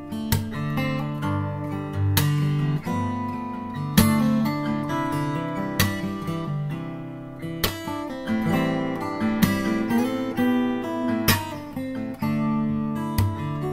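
Background music: acoustic guitar playing plucked and strummed chords, with a strong accent roughly every two seconds.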